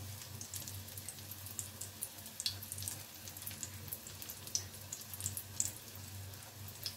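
Crumb-coated shami kebab shallow-frying in hot oil in a flat pan: a steady sizzle with scattered crackles and pops, over a low steady hum.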